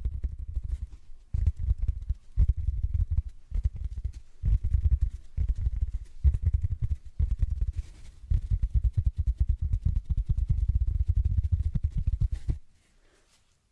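A large porous sponge rubbed and scrubbed against a microphone's metal mesh grille, in several bouts of dense, muffled, low scratching rumble. It stops shortly before the end.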